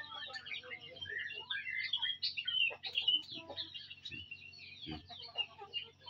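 Several yellow-vented bulbuls chirping and chattering in a rapid run of short, high calls.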